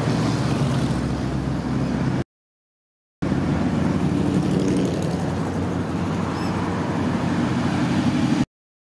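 Hot rod and vintage car engines driving slowly past, a steady low rumble over road noise. The sound cuts out to silence for about a second, a little after two seconds in, and again near the end.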